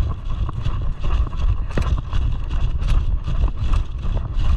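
Wind buffeting the microphone with a heavy, uneven rumble, broken by irregular sharp clicks and knocks several times a second.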